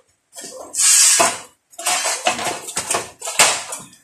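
Steel bar clanking and scraping in a few irregular bursts as it is handled and shifted over concrete.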